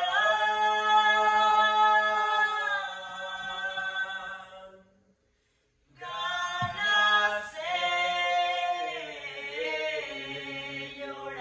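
Unaccompanied singing voice holding long notes for about five seconds, a short pause, then the song resumes with the pitch sliding up and down.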